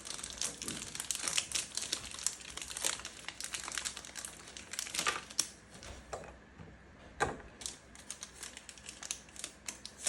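Hershey's milk chocolate bar being broken up by hand, its foil wrapper crinkling in a dense run of crackles, with a few sharper snaps as pieces break off, loudest about five and seven seconds in.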